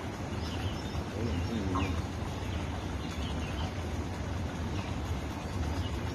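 A flock of flamingos calling: short, scattered honking and clucking calls over a steady low hum.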